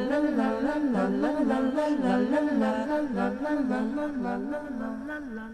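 Song with a voice singing a wordless, lilting melody in a repeating up-and-down figure, fading out near the end.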